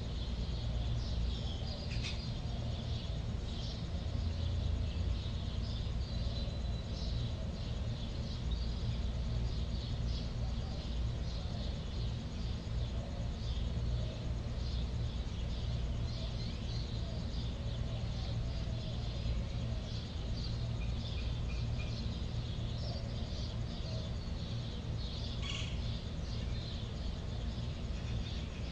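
Natural outdoor ambience: a steady low hum under a continual scatter of faint, high, short chirps, with a couple of brief sharper chirps or clicks.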